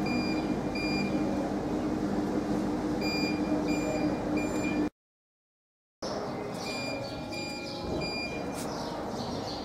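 Steady machinery hum with a repeated short, high electronic beep, the sound dropping out completely for about a second midway.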